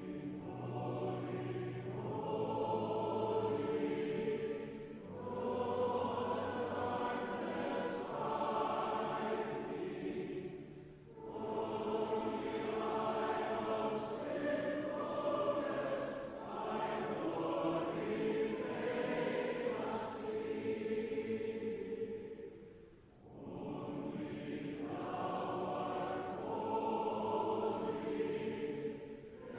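A choir singing a hymn in long, held phrases, with short breaks between phrases.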